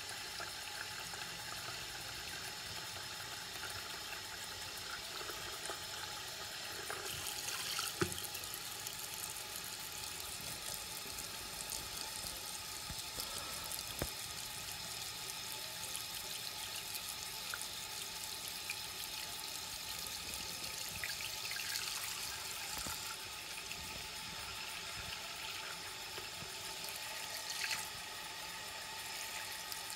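Tap running steadily into a sink, the stream splashing onto a silicone mould as the water level rises, with a few faint knocks.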